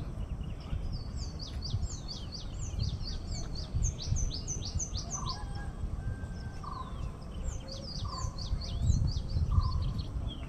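Small songbirds singing in rapid runs of high, downward-sweeping chirps, thickest in the first half and again later on, with a short mid-pitched call note repeating every second or two. A low rumble runs underneath.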